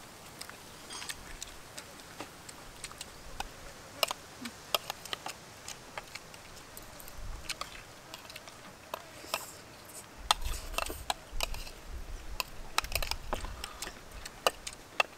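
Metal spoons clinking and scraping against ceramic plates as people eat, a string of irregular sharp clicks. A low rumble joins in about two-thirds of the way through.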